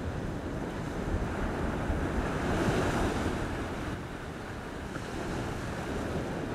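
Black Sea surf breaking on a sandy beach, a steady wash of waves that swells about two and a half seconds in, with wind rumbling on the microphone.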